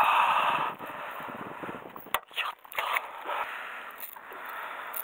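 Handling noise of fishing gear on a boat deck: a loud scrape at the start as the landing net is moved, then a few sharp knocks and clicks about two to three seconds in.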